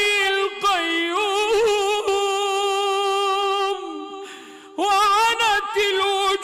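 A man chanting Quran recitation (tajweed) in long drawn-out melodic notes with vocal ornaments. About four seconds in he breaks off briefly for breath, then starts a new phrase.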